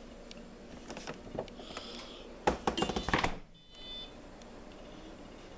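Refrigerator door being handled and pushed shut: a quick series of knocks and thunks about two and a half seconds in, followed by a short electronic beep.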